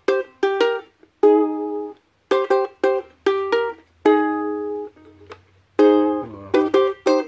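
Ukulele strumming a chord passage slowly: quick groups of two or three short, clipped chords with a few longer ringing chords between, and a G sharp chord near the end.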